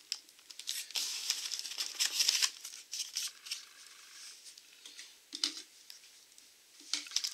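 Cardboard box and clear packing tape being handled: a quick run of scraping, crinkling rustles over the first two and a half seconds, then a few softer, scattered ones later on.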